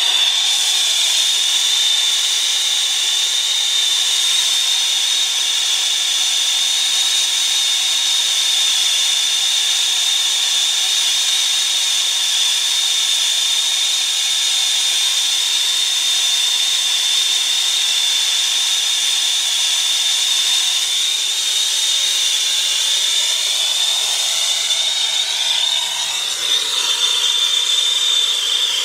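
Lit brazing torch burning with a steady hissing rush and a constant high whistle. About three-quarters of the way through the sound shifts as the flame is brought onto the copper refrigerant line joint at the condensing unit's service valve.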